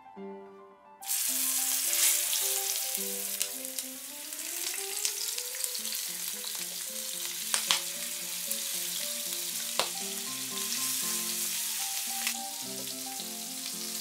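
Seasoned chicken drumsticks frying in hot vegetable oil in a nonstick frying pan. The sizzle starts suddenly about a second in as the chicken goes into the oil, with a couple of sharp clicks partway through.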